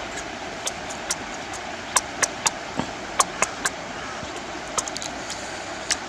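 Mouth sounds of a man eating grilled fish with his hands: wet smacks and crisp clicks of chewing, scattered irregularly, over a steady outdoor hiss.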